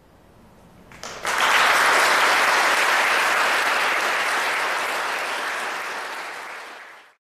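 Audience applauding: the clapping breaks out about a second in, then slowly fades and cuts off abruptly near the end.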